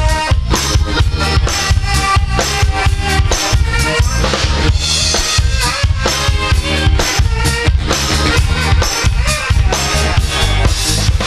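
Live R&B band playing an instrumental stretch, with a steady drum-kit beat of bass drum and snare to the fore under the other instruments.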